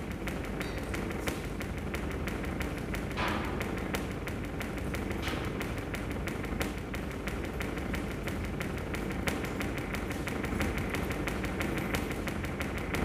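Rapid light tapping and clicking, many taps a second, fairly even.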